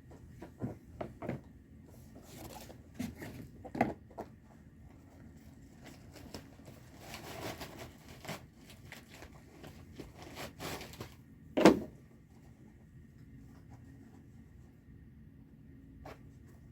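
Scattered light knocks, clicks and rustling of things being handled, with one louder thump a little after the middle.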